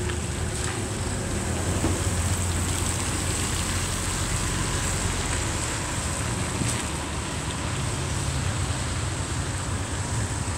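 Cars driving slowly past on a wet road: low engine sound over a steady wash of tyre and rain noise. The engine sound is strongest in the first couple of seconds and again near the end.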